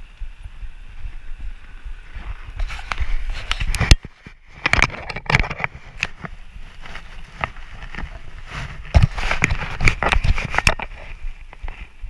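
Bicycle rolling over a rough street, its frame and wire basket rattling with irregular clicks and knocks, the sharpest about four and nine seconds in, over a steady low rumble of wind on the microphone.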